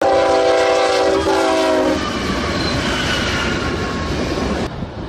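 A multi-note train horn sounds one steady chord for about two seconds, then stops. The rumble and rail noise of a running train follow, and the sound changes abruptly to a duller rumble near the end.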